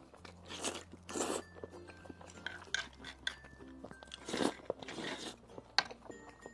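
Close-up eating sounds: a person biting and chewing grilled eel with spicy fire-chicken noodles, with several short slurps of noodles, over soft background music.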